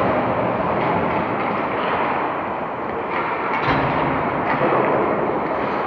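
Steady, dense, echoing noise of an indoor ice rink during hockey play, with a few faint knocks.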